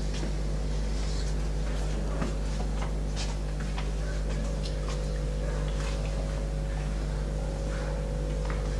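Steady low electrical hum with hiss, dotted with faint scattered taps and rustles.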